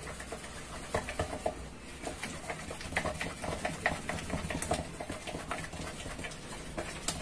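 Wooden stick stirring a thick paste of Texapon 70 and baking soda in a plastic measuring jug: irregular clicks and scrapes of the stick against the jug, several a second.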